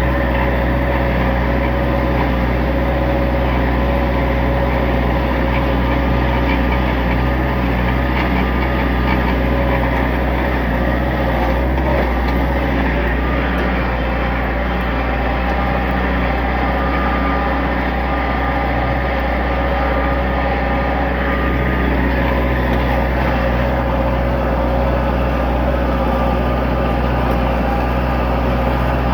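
Tractor engine running steadily under load, dragging chained oak logs, with a steady whine above the engine note.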